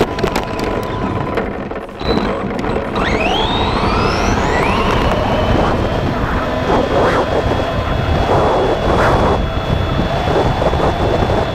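Onboard sound of an Arrma Vendetta 3S BLX brushless RC car at speed on asphalt: loud wind and tyre noise, with the brushless motor's whine climbing steeply in pitch a few seconds in as the car accelerates.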